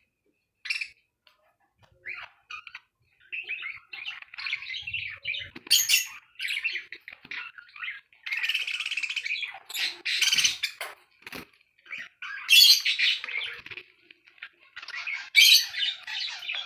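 Pet budgerigars chirping and chattering in a busy run of short calls, with a few sharper squawks.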